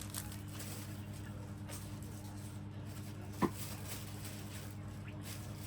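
Faint eating and tableware handling noises over a steady low electrical hum, with one short high squeak about three and a half seconds in.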